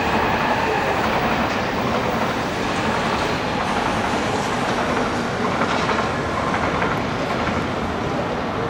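A train running along the rails: a steady rush and rumble that fades slightly near the end.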